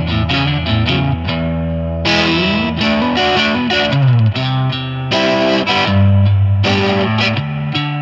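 Electric guitar played through an Eternity-clone overdrive into a Tonemender EQ pedal, giving an overdriven tone. Chords are played in phrases with short breaks between them, and a few notes slide in pitch around the middle.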